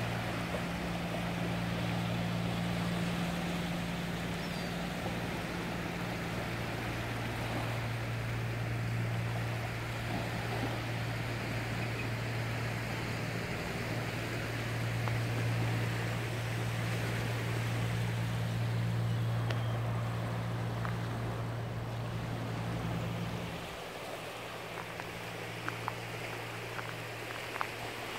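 A steady low engine-like drone over the wash of small waves on the shore. The drone weakens about 24 seconds in, and a few brief sharp sounds come near the end.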